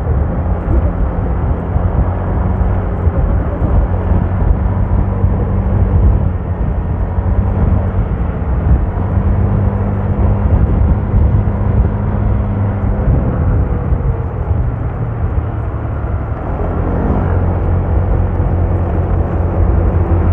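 A vehicle's engine runs steadily on the road, under a continuous rumble of road and wind noise. The engine note eases off about two-thirds of the way through, then picks up again near the end.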